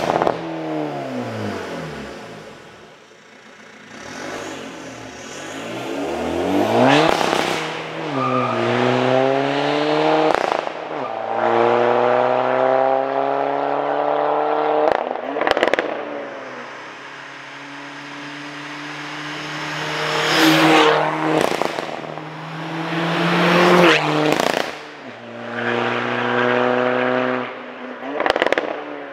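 Stage 3 tuned 1.9 TDI four-cylinder diesel of an Audi A4 B6 Avant accelerating hard, revs climbing and dropping again at each gear change several times over.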